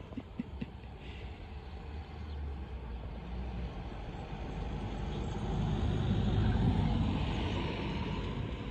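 A road vehicle passing: a rumble with tyre hiss that slowly swells to its loudest about six and a half seconds in, then fades.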